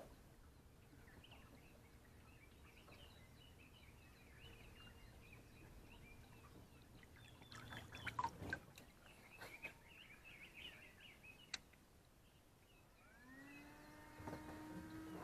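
Quiet lakeside ambience with faint bird chirps, broken by a few sharp clicks about eight seconds in and another a few seconds later. Near the end a drawn-out sound with several pitches at once fades in.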